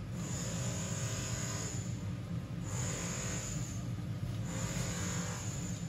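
Hotteok frying in shallow oil on a flat steel griddle, sizzling, with the hiss swelling three times. A steady low hum runs underneath.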